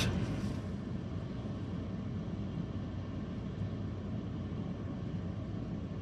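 Steady low rumble of background noise inside a parked car's cabin, with no distinct events.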